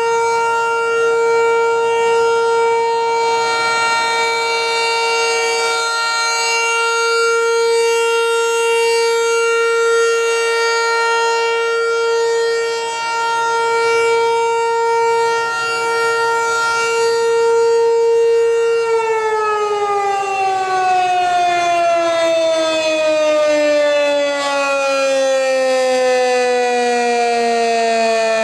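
American Signal T-128 Tempest outdoor warning siren holding the steady tone of its test alert signal. About two-thirds of the way through it shuts off and winds down, its pitch falling steadily.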